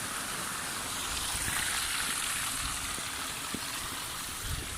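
Stream water rushing steadily over rocks, with a few low bumps near the end.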